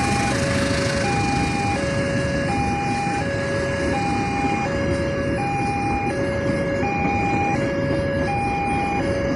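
Railway level-crossing warning siren sounding a steady two-tone alternation, a higher and a lower note of about two-thirds of a second each, repeating over and over. A loud, steady rushing noise runs beneath it.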